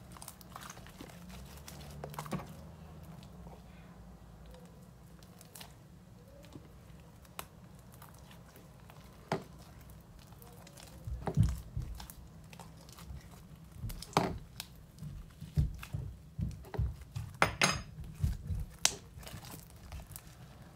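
Hands kneading and stretching a stiff, putty-like homemade slime in a plastic bowl: irregular sticky clicks and pops with soft thumps, sparse at first, then coming thicker and louder from about halfway through.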